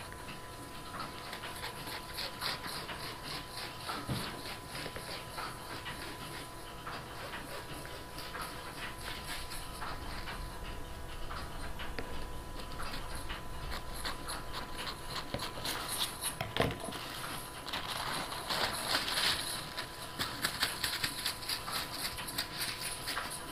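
Rustling and brushing of a large sheet of pleated polyester fabric as hands slide over it and smooth it flat on a worktable, with scissors trimming its edges; the brushing grows louder about three-quarters of the way through.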